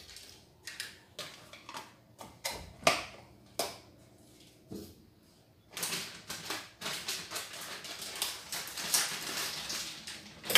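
A spoon tapping and scraping margarine off into a mixing bowl, a few separate sharp knocks, then from about halfway a long stretch of dense crinkling as a packet of cake mix is handled and torn open.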